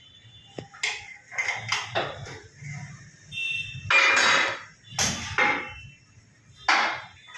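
Steel drill pipe being handled on a borewell drilling rig: irregular metallic clanks and scrapes, the loudest about four to five seconds in, with a brief squeak.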